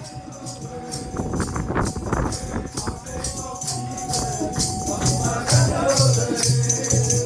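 Devotional bhajan-kirtan: a group of voices singing to hand percussion that keeps a steady rattling beat, with a low drum-like pulse joining about halfway through.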